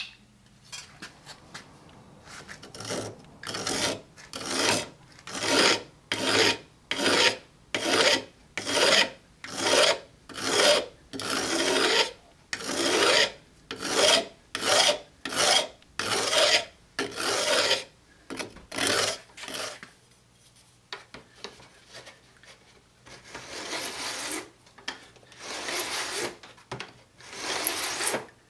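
Metal file rasping back and forth across the cut ends of fret wire on a cigar box guitar neck, dressing them flush with the fretboard edge, in steady strokes about one and a half a second. About two-thirds through the strokes stop; near the end come a few slower, longer strokes.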